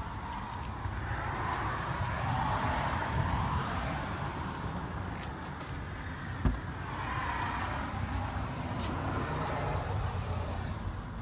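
Road traffic: two passing vehicles swell and fade in turn over a low rumble, with one sharp knock about six and a half seconds in.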